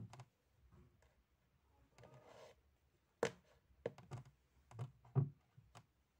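Flower stems being pushed into and shifted in a vase: a brief rustle of the flowers about two seconds in, then several sharp taps and knocks of stems against the vase, bunched in the second half.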